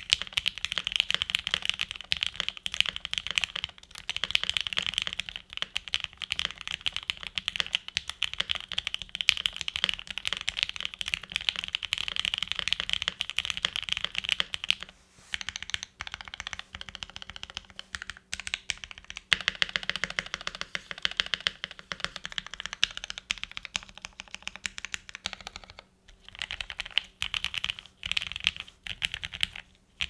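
Typing on a Cannon Keys Chimera65 gasket-mount 65% keyboard with lubed Marshmallow linear switches, an FR4 plate and GMK keycaps: a dense stream of keystrokes that thins out around the middle and breaks into short bursts near the end.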